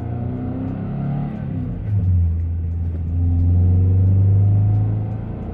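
Car engine and road noise heard from inside the moving car's cabin: a steady low drone that swells about two seconds in and again for a while near the middle, then eases off near the end.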